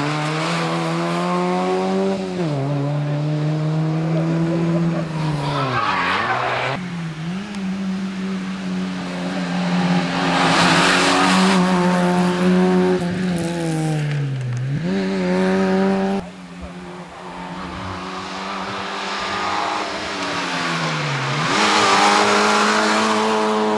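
Fiat Seicento Sporting Abarth rally car's small 1.1-litre four-cylinder engine revving hard at full throttle over several passes. Its pitch dips sharply about four times, as it lifts off or changes gear, then climbs again.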